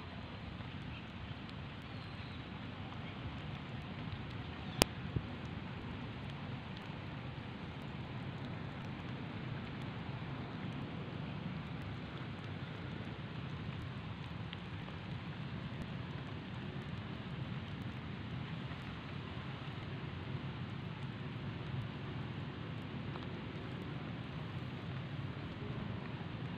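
Steady outdoor background hiss, with a single sharp click about five seconds in.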